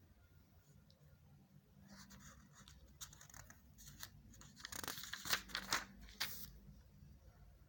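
Bursts of rustling and crinkling for a few seconds, loudest about five to six seconds in, with a few sharp clicks among them.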